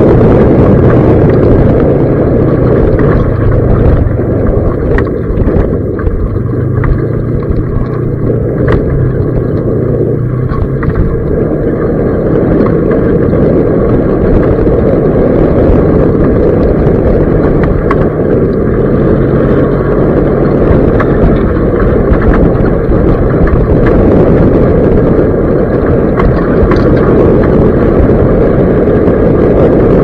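Off-road vehicle driving along a rough dirt track: a loud, steady engine hum whose pitch shifts a little now and then, under a heavy low rumble of tyres and wind on the microphone.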